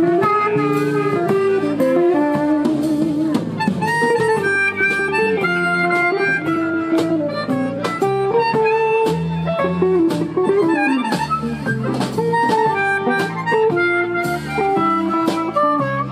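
Live blues band: a harmonica plays a lead line with bent notes over electric guitar, bass guitar and drums.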